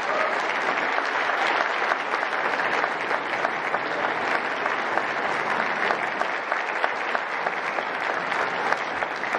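Audience applauding steadily, a dense mass of clapping.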